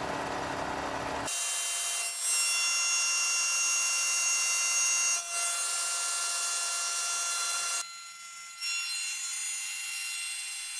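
Bridgeport CNC milling machine's end mill cutting a magnesium plate: a steady high whine of several tones over a hiss. The sound changes abruptly about a second in and drops away briefly near eight seconds.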